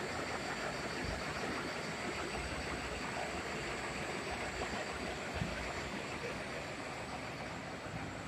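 Bobst Vision Fold folder-gluer running, a steady, even mechanical noise with a faint high whine.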